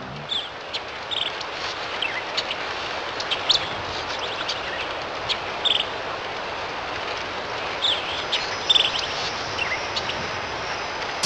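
Open-countryside ambience: a steady rushing noise with short, high bird chirps every second or so.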